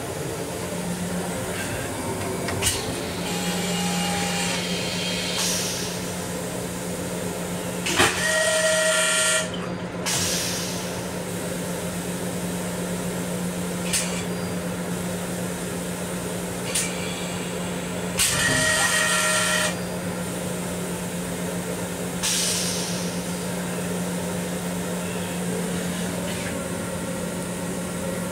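Steady hum and hiss of an LIRR M7 electric railcar heard from inside its small restroom, with a constant low tone. Twice, about ten seconds apart, a loud burst of hiss with high ringing tones lasts about a second and a half.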